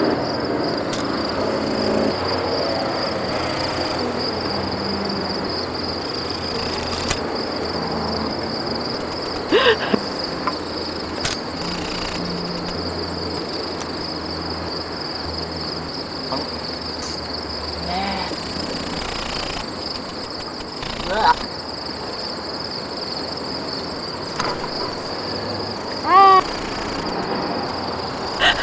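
A steady high trill of insects in the grass, with a few short squealing whistles blown through cupped hands.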